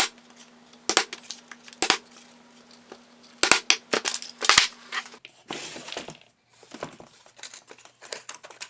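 Handling at the workbench: about seven sharp clicks and taps in the first five seconds, then paper rustling and crinkling.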